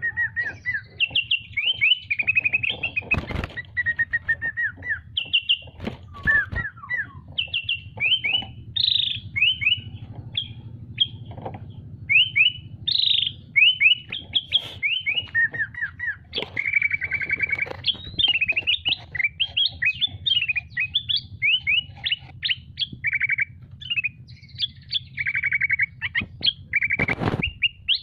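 A kept songbird singing continuously in a fast, varied run of chirps, whistled trills and buzzy rattles, with a few sharp knocks about 3 s in, about 6 s in and near the end, over a steady low hum.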